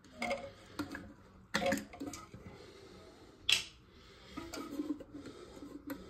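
Scattered clicks and knocks of hands working on toilet parts, the loudest about a second and a half in, with a short hiss about three and a half seconds in.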